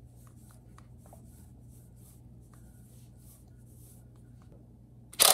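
Faint rubbing and small ticks as gloved hands turn a water-packed bolt in the end of a generator rotor. About five seconds in comes a sudden loud burst, lasting under a second, as hydraulic water pressure pops the rotor off the engine's tapered crankshaft.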